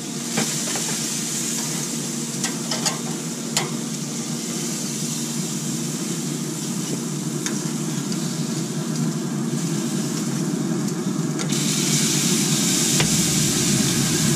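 Metal tongs clicking sharply several times against the grill grate and sheet pan as sauced chicken halves are lifted off a Pit Boss wood pellet grill, over the steady hum of the running grill and a hiss of sizzling. The hiss grows louder near the end.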